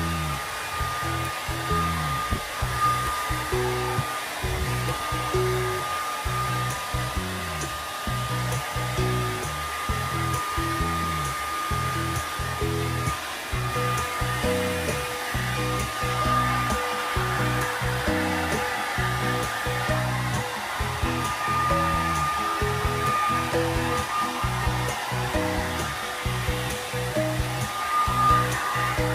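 Hair dryer blowing steadily, used to dry a wet dog's coat after its bath, with background music playing over it.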